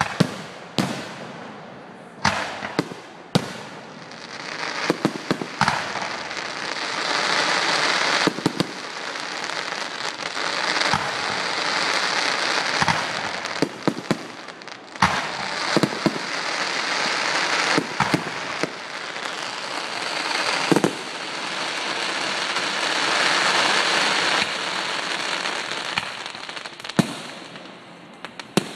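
Aerial firework shells bursting overhead: a long run of sharp bangs, some in quick pairs, over a steady crackle that swells and fades twice.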